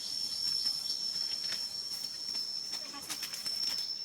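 Steady high-pitched insect drone, with a run of light clicks and rustles about three seconds in.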